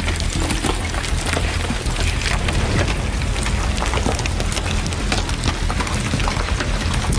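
Heavy rain pattering hard on a surface, a dense crackle of drops over a steady low rumble.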